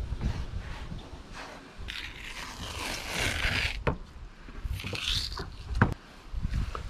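Fillet knife cutting and scraping through a mahi-mahi's flesh and skin in uneven strokes, the longest lasting over a second, with a single sharp knock just before six seconds in.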